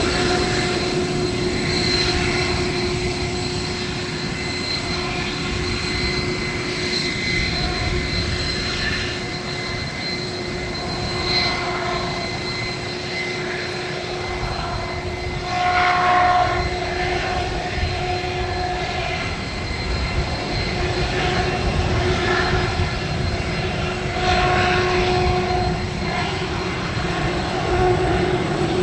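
RAH-66 Comanche helicopter running on the runway, its main rotor and twin turboshaft engines making a steady whine over the rotor chop as it lifts into a low hover. The sound swells briefly about halfway through.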